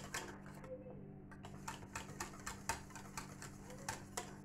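Wire whisk clicking and scraping against the sides of a stainless steel saucepan while stirring thick pastry cream, working in margarine until it melts. The clicks come quick and irregular, several a second, over a low steady hum.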